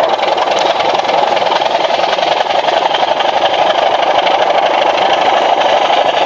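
Digital sound decoder in a model BR Class 27 diesel locomotive, playing its recorded diesel engine running steadily through the model's small speaker. The sound is thin, with little bass.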